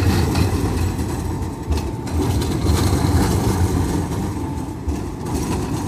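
Electric tram passing close by at low speed, giving a steady low rumble of wheels on rails and running gear.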